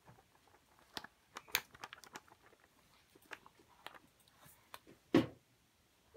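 Pages of a paperback book handled and turned by a gloved hand: scattered crisp paper crackles and ticks, with one louder thump about five seconds in.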